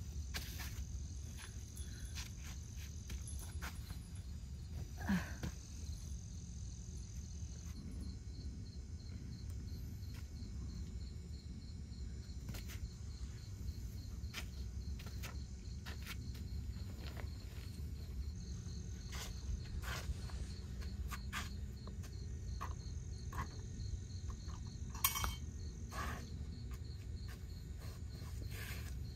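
Night insects, crickets, trilling steadily and high over a low rumble, with scattered clicks and knocks of camp gear being handled on a table; the sharpest knock comes about 25 seconds in.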